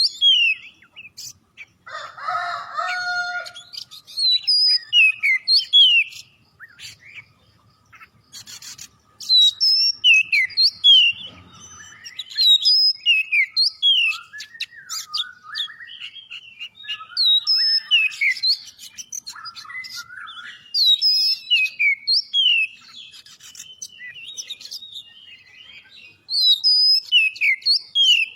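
Oriental magpie-robin (kacer) singing energetically in phrases of sharp, high whistled notes that mostly slide down in pitch, with short pauses between phrases and a lower, harsher note about two seconds in.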